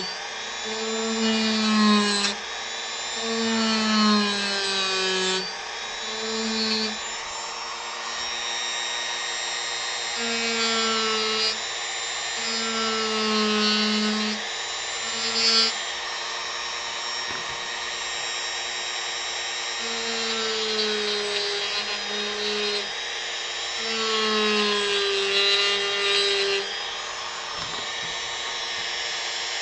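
Dremel rotary tool running and carving wood, its motor whine dipping in pitch again and again as the bit bears into the wood.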